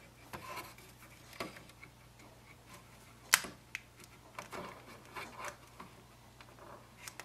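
Light plastic clicks and rubbing as the Epson WorkForce WF-2850 printhead and its ribbon cable are handled and fitted back into the print carriage, with one sharp click about three seconds in.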